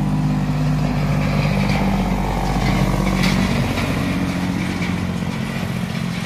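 Diesel engine of a long-nose semi tractor pulling an empty flatbed trailer as it drives past. Its deep, steady engine note, with tyre noise, is loudest about three seconds in, then fades as the truck moves away.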